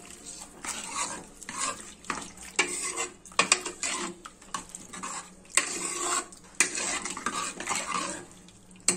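Metal ladle stirring mutton, bones and water in an aluminium pressure cooker: repeated sloshing swishes, with the ladle clinking sharply against the pot a few times.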